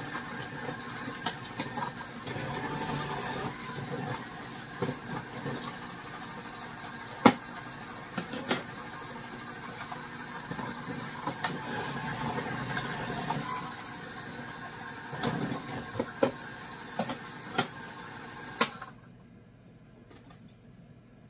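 Electric food processor motor running with its shredding disc as zucchini is pushed down the feed tube, with sharp knocks and clatters of the pieces hitting the spinning disc. The motor cuts off suddenly near the end.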